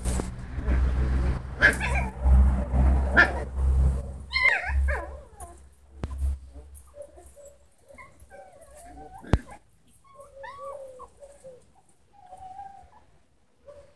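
Puppies whimpering and yipping in short high calls that bend up and down as they play-fight. A loud low rumble on the microphone fills the first four seconds, and there is one sharp click about nine seconds in.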